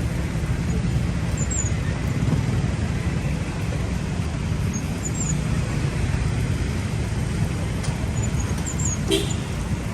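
Steady road traffic noise with a low engine rumble, with a few faint high chirps and a short sound about nine seconds in.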